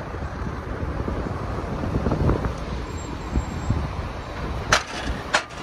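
Road noise from a moving car, with wind rumbling on the microphone and passing traffic, and two sharp knocks near the end.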